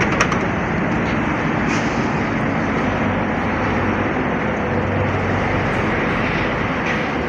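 American semi-truck diesel engine running steadily, with a low engine hum under a broad, even noise.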